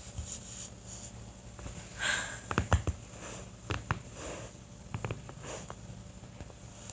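Joints cracking: a quick cluster of sharp pops about two and a half seconds in, with single pops near four and five seconds, and a short hiss of noise just before the cluster.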